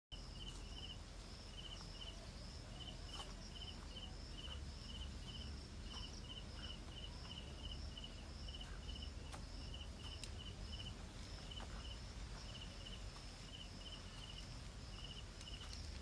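Insects chirping in grass: a steady run of short pulsed chirps, about two or three a second, over a continuous higher buzz, with a few faint taps.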